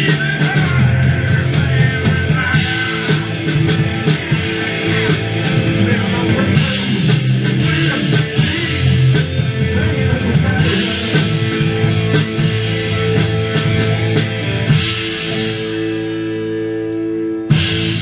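Live rock band playing loud: electric guitar over bass and a drum kit. The low end thins out about three-quarters through, leaving held chords, and a last loud hit near the end rings off as the song finishes.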